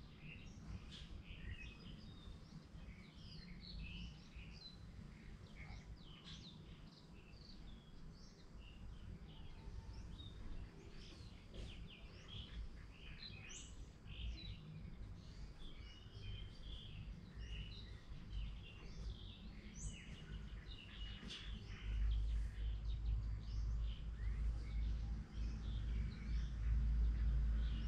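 Small birds chirping and twittering busily, many short quick calls overlapping, over a low rumble that swells louder for the last several seconds.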